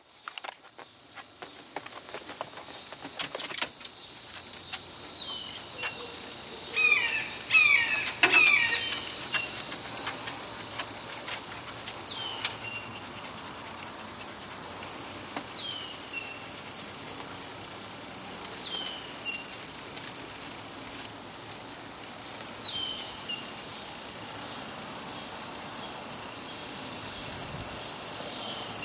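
A steady high-pitched insect chorus, with a bird repeating a short call that falls in pitch every three to four seconds and a quick run of chirps about seven to nine seconds in. Scattered small clicks are heard over it.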